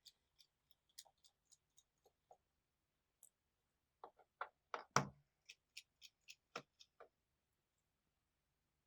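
Faint, scattered small clicks and taps of a T5 Torx screwdriver working the laptop's bottom-case screws, with a quick run of sharper clicks from about four to seven seconds in.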